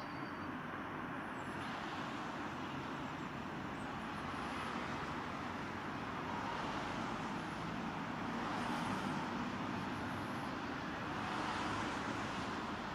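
Steady rumble of vehicle noise that swells about two-thirds of the way through and again near the end.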